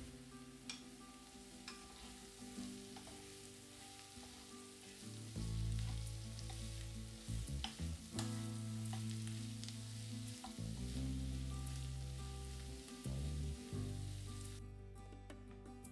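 Food frying in oil in a pan: a steady sizzle, with a utensil stirring and clicking against the pan now and then. The sizzle stops near the end.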